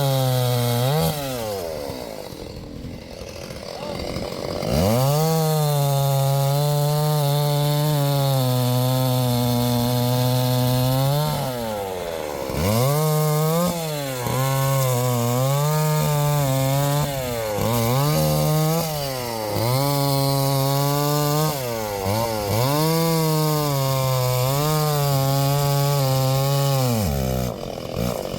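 STIHL MS 381 two-stroke chainsaw cutting wood, held at full throttle for several seconds at a time. Its pitch dips and recovers as the chain bites, and it drops back toward idle briefly three times (just after the start, about 12 seconds in, and near the end).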